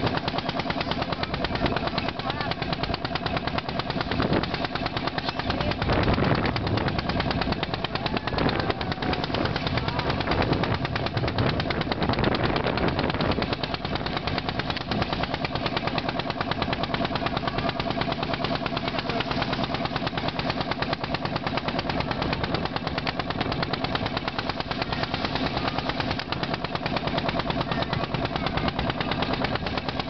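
Boat's engine running steadily with a fast, even knocking, over a rush of wind and water.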